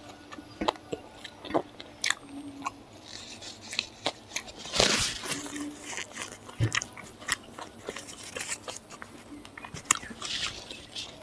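Close-miked chewing and biting of fried pork, with many sharp crunchy clicks and wet mouth sounds. A short, louder noisy burst comes about halfway through.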